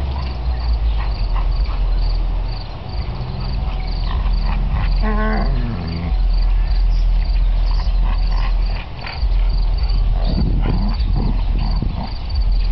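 Insects chirping in a steady, even rhythm over a low rumble. About five seconds in, a short call slides down in pitch.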